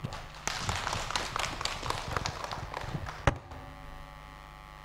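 A small group applauding: about three seconds of scattered hand-clapping that ends with one last louder clap, then only a faint steady hum.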